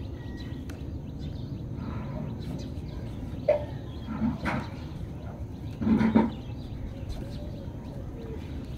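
Steady low background hum with a few short animal calls, the loudest about six seconds in.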